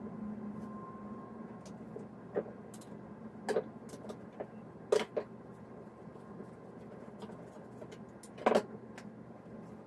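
Sharp knocks and clacks of PVC pipe pieces being pulled apart and knocked together as a pipe display stand is taken down: a handful of scattered knocks, loudest about five and eight and a half seconds in, over a faint steady room hum.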